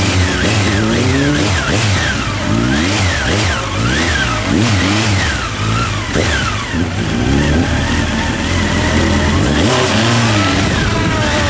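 Honda CB1300's inline-four engine revving up and falling back again and again, about once a second, as the bike is ridden hard through tight turns.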